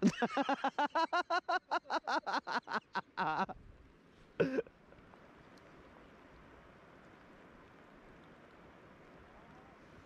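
A man laughing in a fast run of short 'ha' bursts for about three and a half seconds, then a brief vocal sound, followed by steady low wind noise on the microphone by the river.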